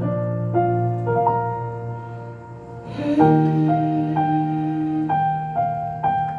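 Live instrumental ending of a slow ballad: sparse, gently played keyboard notes over a held low note, quietening about two and a half seconds in before a fuller chord returns.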